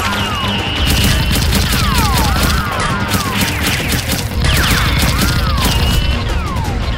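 Rapid gunfire sound effects from a staged gunfight, with repeated falling whistling sweeps between the volleys, over background music.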